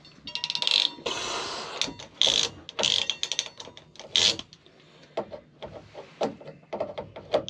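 Hand-squeezed ratcheting crimp tool clicking through its ratchet as it closes a ring onto a plumbing fitting, with a rapid run of clicks near the start and several louder rasping spells after it.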